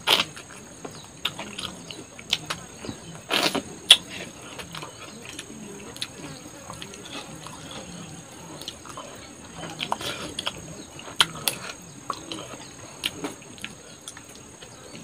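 Close-up mukbang eating sounds: chewing and lip smacks, with small clicks and rustles as fingers work rice and chicken curry on a banana-leaf-lined plate. There is one louder, noisy moment about three and a half seconds in. A steady high insect trill runs underneath.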